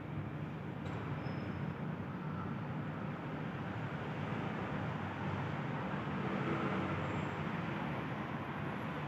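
Steady traffic rumble, swelling slightly about two-thirds of the way through.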